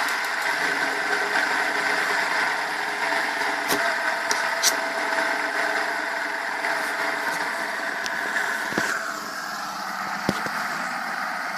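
Fidget spinners whirring on their ball bearings after being flicked into a spin, a steady high hum that slowly fades and drops in pitch as they wind down. There are a few light ticks.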